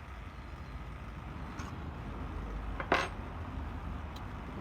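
Small metallic clinks as the cam is tightened into a Dremel rotary tool's collet: one sharp clink about three seconds in and a couple of fainter ticks, over a low steady background hum.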